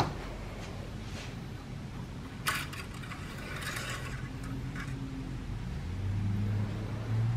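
Handling noises at an engine's oil dipstick: a sharp click, then about two seconds of scraping and cloth rustling as the metal dipstick is worked and wiped with a rag. A low steady hum comes in near the end.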